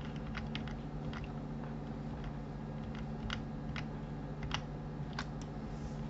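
Computer keyboard and mouse clicking: about a dozen scattered key taps and button clicks as Ctrl+Z undo is pressed over and over, over a steady low hum.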